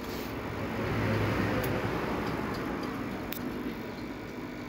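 Hot air rework gun blowing a steady hiss of hot air onto a phone board's power IC, swelling about a second in, to reflow the chip's solder balls. A couple of faint clicks sound over it.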